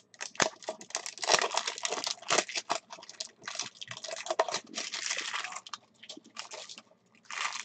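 Plastic shrink-wrap crinkling and tearing as a sealed box of football trading cards is unwrapped, with irregular crackles and small clicks and a short pause about six seconds in.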